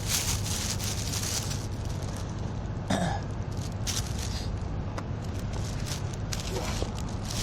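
Steady outdoor street background noise, a low rumble with hiss, with a few brief rustling bursts and a short vocal sound about three seconds in.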